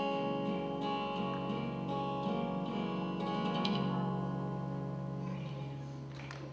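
Acoustic guitar chord strummed once and left to ring, slowly fading away: the closing chord of a song.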